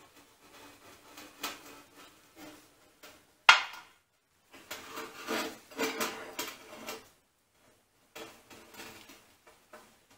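Metal clanks and scrapes as the heavy cast-iron vertical milling head of a Kearney & Trecker 2CH mill is shifted and fitted against the machine, with one sharp clank about three and a half seconds in, a busier run of clatter after it, and a few lighter knocks near the end.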